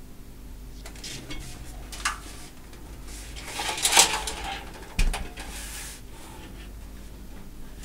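Handling noise of a steel computer case: small clicks and cable rustling, a scraping shuffle as the case is turned over, then one sharp knock about five seconds in as it is set down on the desk.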